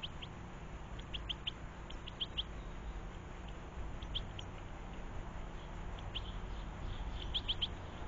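European goldfinches calling at a seed feeder: short, high chirps in quick clusters of two to four, coming every second or two, over a steady low rumble.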